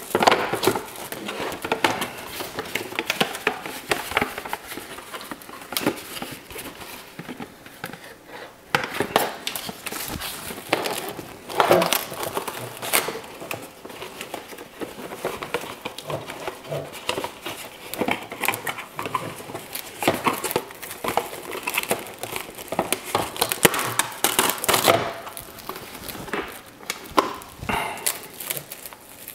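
Plastic cling wrap crinkling and rustling in irregular flurries as it is drawn off the roll and pressed by hand around a taped-up plastic RC truck body to mask it for spray painting.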